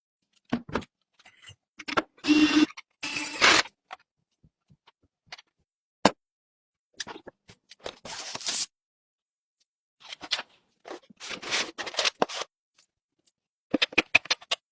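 Intermittent handling noises: short scrapes, rustles and sharp clicks of objects being moved and set down, in bursts separated by silences.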